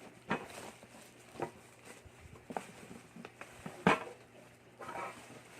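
Handling noise from unpacking a purchased item: a few separate knocks and clatters with rustling between them, the loudest about four seconds in.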